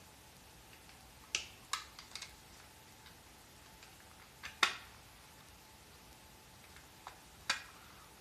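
A few short, sharp clicks and taps, as of small parts being handled and knocked together, in irregular clusters over a faint steady hum.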